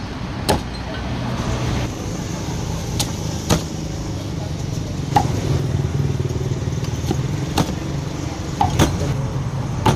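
Heavy cleaver chopping through roast duck onto a wooden chopping block: about eight sharp chops at an uneven pace, two in quick succession near the end. A steady low rumble runs underneath.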